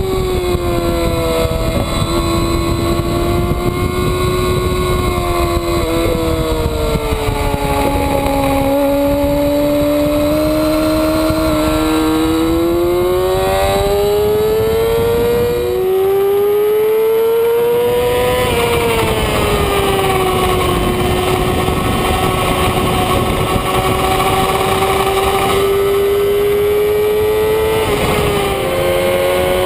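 2007 Yamaha R6's inline-four engine at high revs on a track lap, its pitch climbing and falling as the rider works the throttle and gears, with a few sudden steps in pitch. Steady wind rush runs under it.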